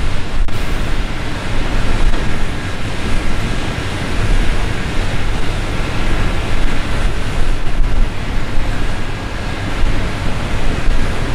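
Volvo L180H wheel loader's diesel engine running steadily as the machine drives its wide steel bucket into a heap of sugar beets, a loud, even rumble with a rushing noise over it.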